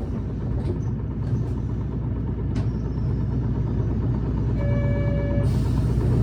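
City bus engine and drivetrain running under way, heard from inside the cabin and growing steadily louder as it pulls. The uploader labels this bus a high-revving, odd-sounding unit. A short electronic tone sounds briefly near the end.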